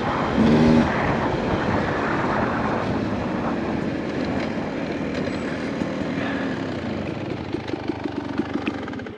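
Beta 250RR two-stroke dirt bike engine running and revving as it rides a trail, with rapid firing pulses and a wavering pitch. The sound drops away suddenly near the end.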